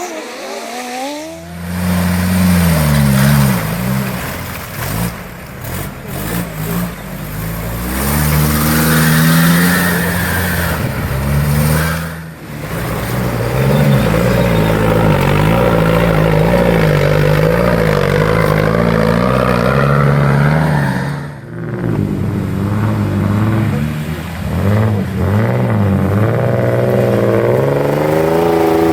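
Off-road vehicle engine revving hard, its pitch rising and falling as it works under load, broken by sudden cuts between shots.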